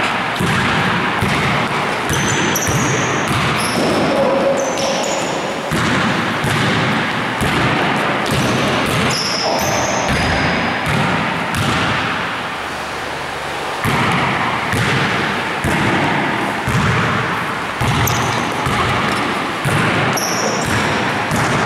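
Basketballs bouncing on a court floor and being caught and passed: many thuds in quick, irregular succession, with short high squeaks scattered among them.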